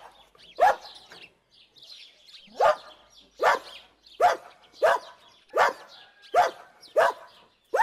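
A dog barking: one bark, a pause of about two seconds, then a steady run of single barks at about one every 0.7 seconds, each falling slightly in pitch.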